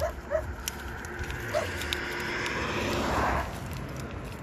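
Stray dog whimpering in three short, high whines in the first couple of seconds as it eats wet food from a foil pouch held to its mouth. A hiss then swells and cuts off sharply about three and a half seconds in.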